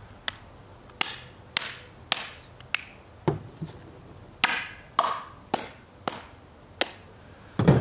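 A rod hammered down into a 37mm aluminium hull to seat the floor plate over the black-powder charge: about a dozen sharp knocks, roughly two a second and slightly uneven, the loudest near the end.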